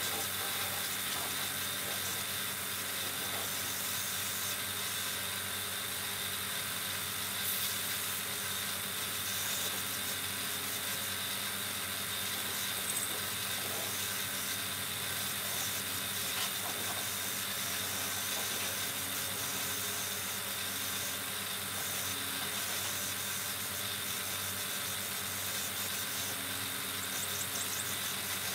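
Compressed-air paint spray gun hissing steadily as it sprays paint, over a steady motor hum.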